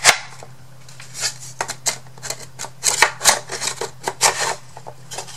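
Thin wooden kit pieces being handled and fitted together: a run of light clicks, taps and short scrapes of wood on wood, with a sharp click just at the start.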